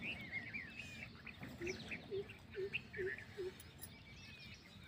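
Birds chirping, with many short, quick chirps. In the middle comes a run of five low, evenly spaced calls about half a second apart.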